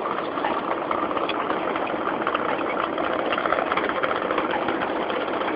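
Steady running noise of machinery, with a fast, irregular clicking over it.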